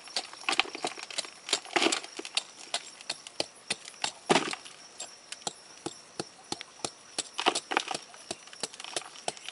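A small hand tool scraping and chipping into soil and rock, with irregular scratches and knocks and a few louder gritty scrapes.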